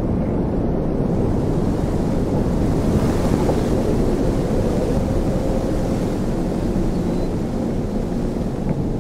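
Wind buffeting an outdoor microphone: a steady low rumble with no breaks.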